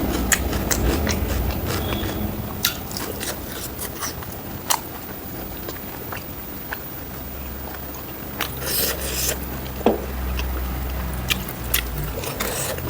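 Close-miked chewing of a meal of fried pork with rice and gravy: wet mouth smacks and sharp clicks scattered irregularly throughout, a few louder than the rest.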